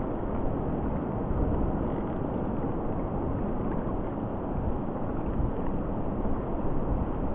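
Wind blowing across the microphone: a steady, rumbling rush with no distinct events.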